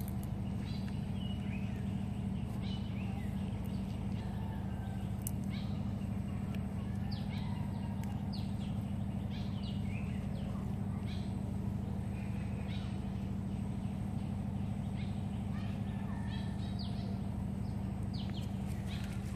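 Birds chirping, scattered short calls over a steady low hum.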